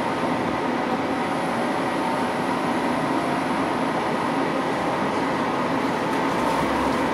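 Steady running noise heard inside a Düsseldorf Stadtbahn light-rail car in motion, with a thin steady whine over the rumble.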